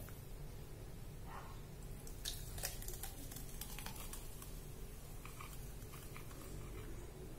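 Thick blended ice slush pouring out of a blender jar into a glass: faint squishing and slushing, with a few short soft clicks and crackles of ice. A steady low hum runs underneath.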